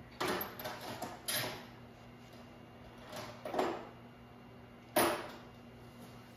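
Hand tools working on metal during bolt torquing: about five short clanks and knocks, the loudest about five seconds in.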